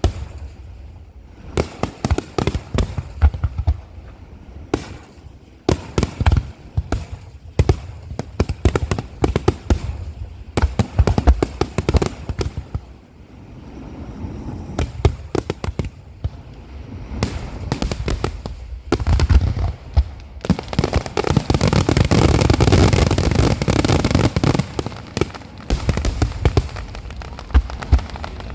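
Aerial fireworks finale: shell after shell bursting in rapid, irregular bangs, which merge about two-thirds of the way through into a dense, continuous barrage for several seconds before thinning back to separate bangs.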